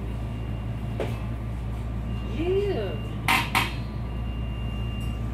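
Steady low hum inside a commuter rail car standing still at a station, with no wheel or track noise. A faint click comes about a second in, and two sharp metallic clinks about a third of a second apart follow just past the middle.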